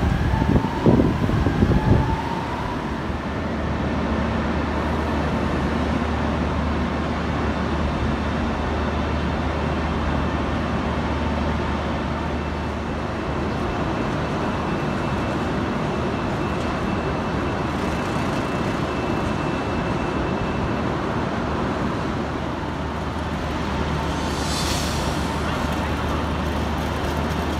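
Station platform ambience beside a standing long-distance passenger train: a steady low hum under a broad, even noise, with a short hiss near the end and a few knocks in the first two seconds.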